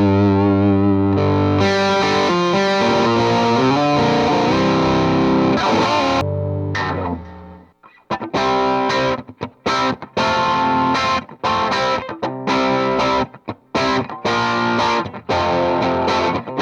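Les Paul electric guitar played through distortion: held chords ring out and fade away to silence about seven seconds in, then short, choppy chords with brief gaps between them.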